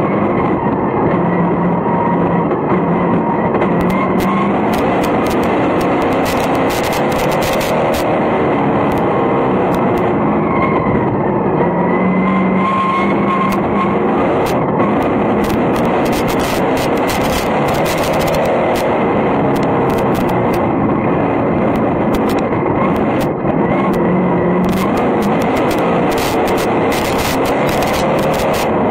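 Vintage modified sportsman race car's engine running hard at racing revs, heard from inside the cockpit, its pitch rising and falling as the throttle comes off and back on. Scattered sharp clicks of dirt clods striking the car run through it.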